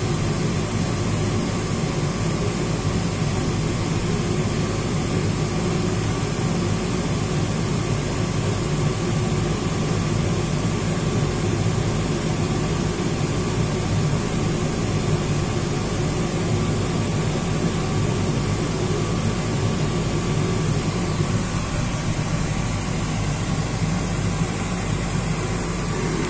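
Steady mechanical hum and fan-like whir inside an enclosed Ferris wheel gondola as the wheel turns, with a faint steady high tone.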